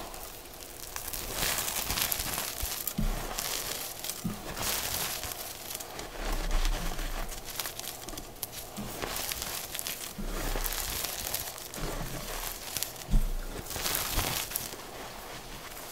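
Blocks of gym chalk coated in pigment powder being crushed and crumbled by hand, in a series of crackly bursts a second or two apart, with a sharp snap about two-thirds of the way through.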